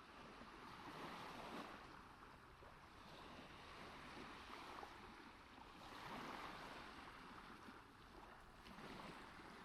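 Faint ocean waves washing in, a soft hiss that swells and ebbs in slow surges, loudest about a second in and again around six seconds.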